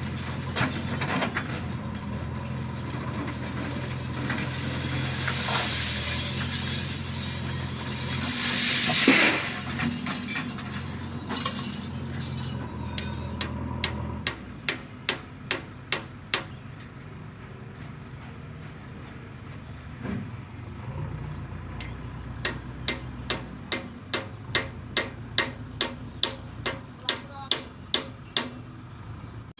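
Heavy diesel machinery running steadily, with a loud rushing hiss building and dying away about nine seconds in. Midway the engine note drops, and a long run of sharp, evenly spaced metallic clicks follows, roughly two a second.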